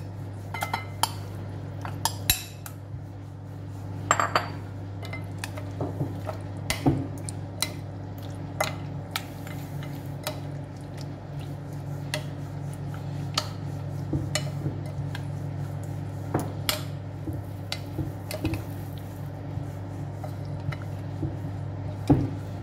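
Spoon clinking and scraping against a glass bowl in irregular taps as chicken pieces are stirred into a thick yogurt-spice marinade, over a steady low hum.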